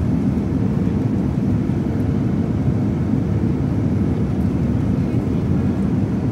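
Steady low rumble of jet airliner cabin noise at cruise, engine and airflow noise heard from inside the cabin, with a faint steady hum.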